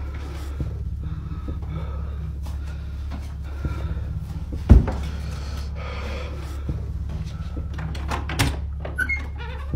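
A single loud bang from the room next door about five seconds in, then a few fainter knocks near the end, over a steady low hum.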